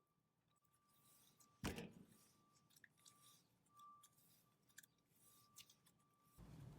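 Very faint handling sounds of soft cloud-cream slime: scattered small clicks and crackles, with one sharper click about a second and a half in.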